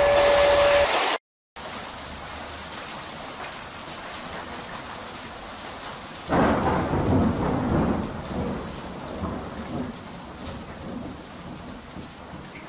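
Steady heavy rain, with a rumble of thunder about six seconds in that fades away over several seconds. In the first second, a railroad crossing signal's two alternating warning tones sound, then cut off abruptly.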